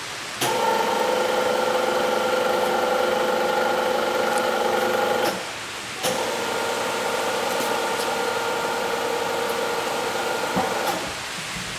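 FORADIA GK 50/1500 radial drill running under power: a steady machine whine with several even tones. It switches on about half a second in, stops after about five seconds, starts again a moment later and stops near the end.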